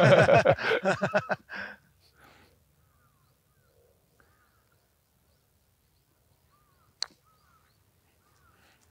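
A single sharp click of a putter striking a golf ball about seven seconds in, with faint bird chirps in the quiet around it.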